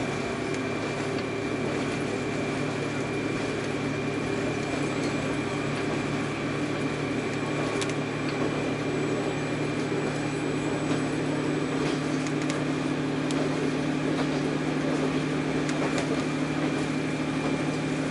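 Interior of a moving diesel railcar: a steady engine drone under the running noise of wheels on rail, its note growing a little stronger about halfway through, with a few faint clicks.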